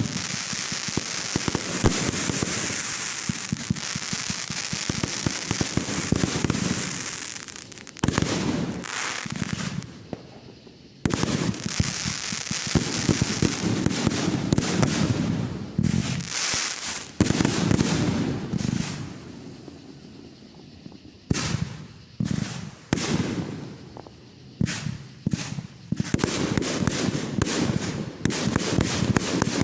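Fireworks going off: long runs of rapid shots and popping, broken by two short lulls, with a few separate bangs in between.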